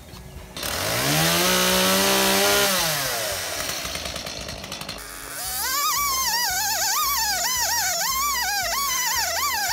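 Petrol chainsaw revved up to full throttle, held there for about two seconds, then dropping back. From about five seconds in, background music with a warbling melody and a steady beat takes over.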